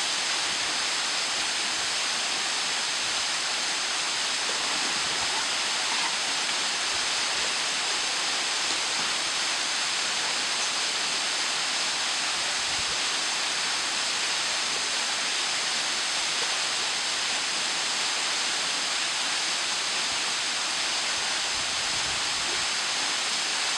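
Ohau Stream waterfall pouring into its pool: a steady rushing of falling water, even and unbroken throughout.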